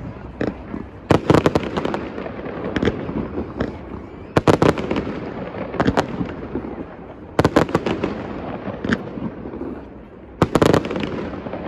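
Fireworks display: aerial shells bursting in quick clusters of sharp bangs roughly every three seconds, with single bangs in between.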